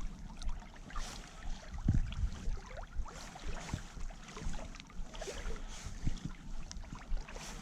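Small waves lapping and splashing irregularly at the water's edge, with light clicks and splashes scattered through.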